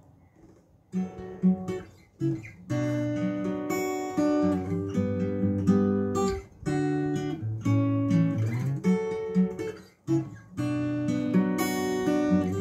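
Acoustic guitar strummed in chords as a song intro, starting after about a second of near quiet with a few single notes, then steady strumming with two brief breaks.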